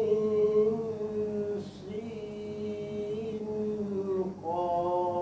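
A single voice reciting the Quran in chanted style, drawing out the disconnected opening letters 'Ain Sin Qaf in three long held notes, each vowel stretched over a long count of harakat.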